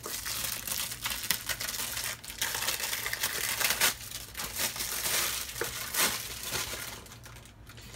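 Packaging being torn open and crinkled by hand, a dense rustling with scattered crackles that dies down about seven seconds in.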